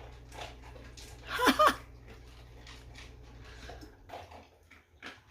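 A short whining vocal sound that bends up and down in pitch, about a second and a half in, over faint scattered clicks and a steady low hum that cuts off about four seconds in.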